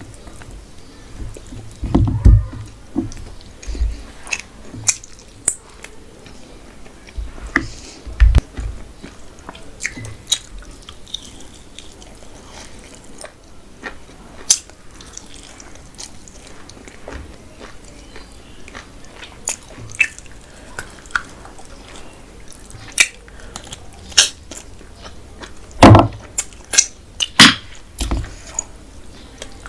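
Close-miked eating sounds: a person chewing and biting food, with many small irregular wet mouth clicks and a few louder knocks.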